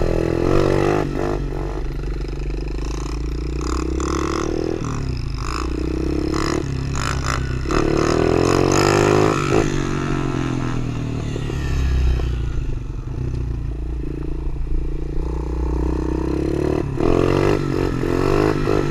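Small four-stroke pit bike engine being ridden, its revs rising and falling again and again as the throttle is worked on and off, with rattling and scraping from the bike over rough ground.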